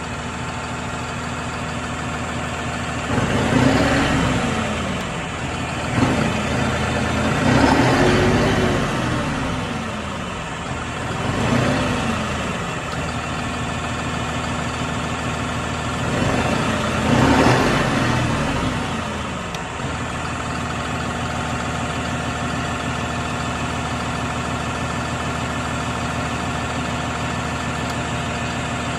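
New Holland HPCR CRDi tractor's common-rail diesel engine revved up and back down four times, then idling steadily.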